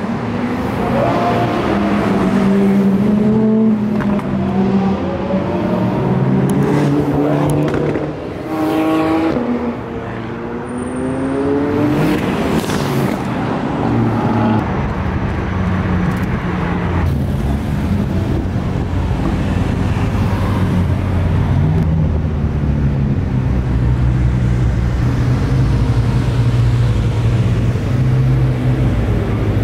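A line of supercars driving past on a race track, engines revving and accelerating one after another, their pitch rising and falling as each goes by. From about halfway, a steadier low engine drone takes over.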